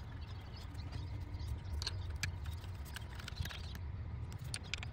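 Irregular small clicks and taps of the metal mounting bolts being handled and put back into the new camshaft actuator solenoids, over a low steady hum.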